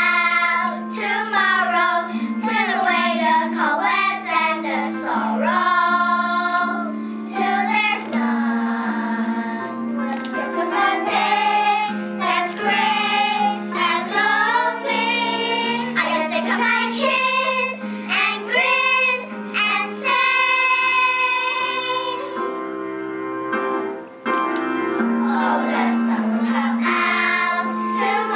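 Children singing a song over an instrumental accompaniment with sustained low notes.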